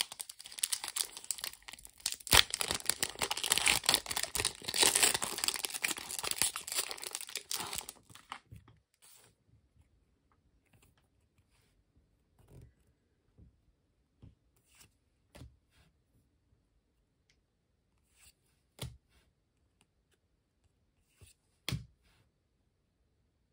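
Foil trading-card booster pack wrapper crinkling and tearing open for about eight seconds, then a few soft taps and clicks as the cards are handled.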